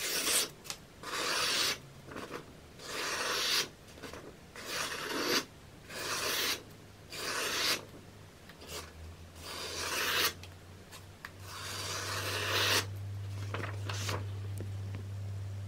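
A sharp knife blade slicing through a sheet of paper in a string of separate strokes, each a dry, hissing cut lasting under a second, as a test of the edge's sharpness. A low steady hum comes in about halfway.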